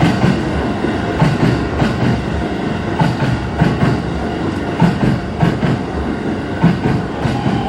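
Keisei Main Line electric train passing over the level crossing, loud, its wheels clunking over the rail joints in close pairs, one pair per bogie, over a steady running rumble.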